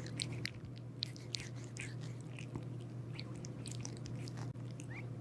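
Kitten sucking and nibbling on its own paw: faint, short, wet smacking clicks that come irregularly, over a steady low hum.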